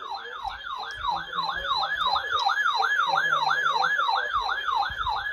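Electronic siren in a fast yelp, its pitch sweeping up and down about three to four times a second.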